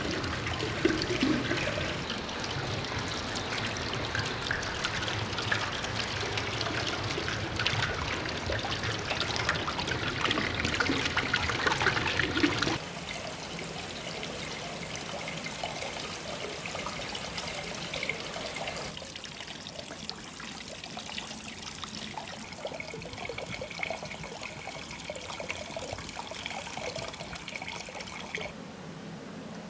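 Water trickling and flowing down the bamboo-shaped course of a pump-fed somen nagashi machine. The sound drops suddenly about 13 seconds in to a quieter, steady flow of water.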